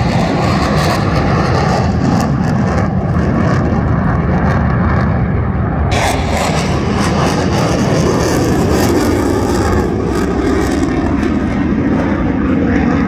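Military jet aircraft flying over, with loud, steady jet engine noise; about six seconds in a brighter hiss joins as a single jet passes low.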